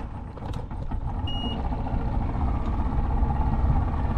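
Old two-stroke outboard motor running with a steady low rumble that grows louder, now getting power after a burnt 20 amp fuse was replaced. A single short high beep sounds about a second in.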